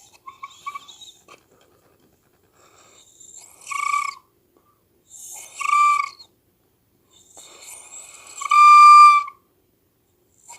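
Flute blown for a weird effect: airy breath noise swells into a steady whistly note, three times about two seconds apart, the last one held longest and loudest, after a few short faint chirps at the start.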